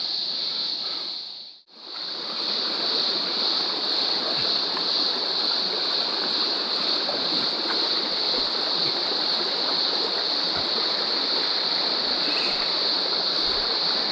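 Shallow, rocky stream babbling over a riffle, with a steady high-pitched insect drone over it. The sound fades out and comes back in under two seconds in.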